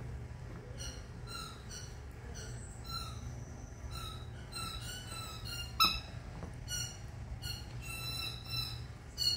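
Miniature dachshund puppies squeaking: short, high-pitched squeals come again and again at irregular intervals over a steady low hum, with a sharp click about six seconds in.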